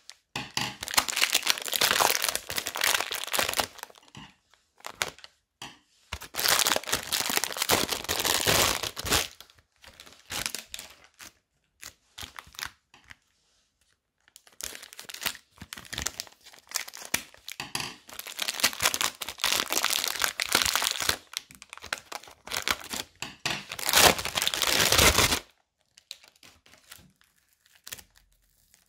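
Thin plastic bags crinkling and rustling as foam bead bricks are pulled out of them, in three long bursts with short pauses between.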